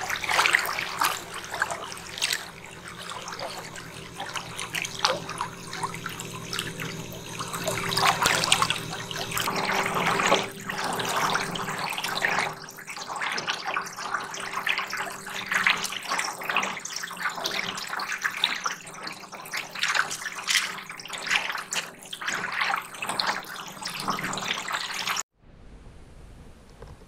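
Water splashing and lapping against the hull of a small aluminium boat, with a faint steady hum underneath. It cuts off abruptly near the end, leaving a much quieter scene.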